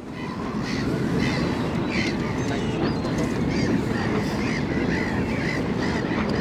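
Birds calling over and over in short cawing calls, over a steady low rumble.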